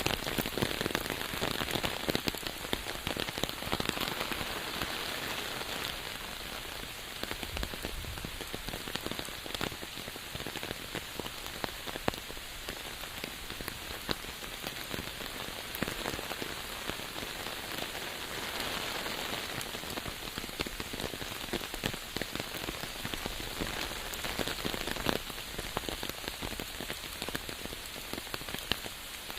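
Steady rain falling on a surface, a dense even hiss with many separate drops pattering through it.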